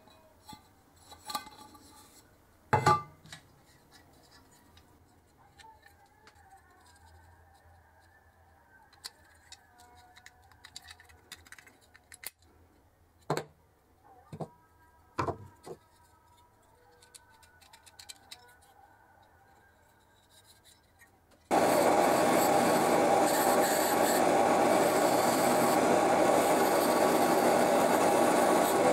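Small metal lamp parts clicking and tapping as a brass burner is taken apart, a few sharp knocks among long quiet stretches. About three-quarters of the way in, a drill press spinning a wire brush wheel comes on loud and steady, scrubbing rust and tarnish off the brass burner part held against it.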